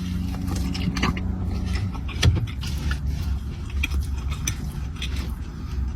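A steady low hum like a running car engine, with scattered small clicks and rustles over it.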